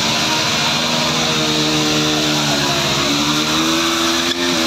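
Motorcycle engine held at high revs during a rear-wheel burnout, its pitch steady with small rises, over the steady hiss of the spinning tyre on the road.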